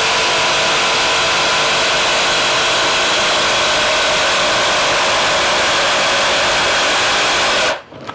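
Electric jigsaw running steadily as it cuts thin wood stock, a loud, even motor whine that cuts off suddenly near the end, followed by a few light knocks.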